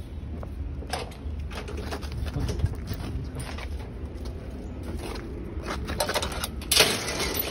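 Footsteps and rustling while walking a dog on a leash, over a steady low rumble of handling and wind noise on the phone microphone. Near the end comes one loud, brief scraping rattle.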